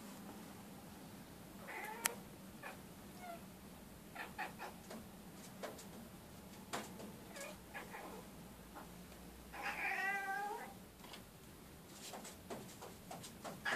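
Domestic cat meowing in a string of short calls, with one longer, wavering meow about ten seconds in and a sharp click about two seconds in. The cat is scolding something beyond the window glass.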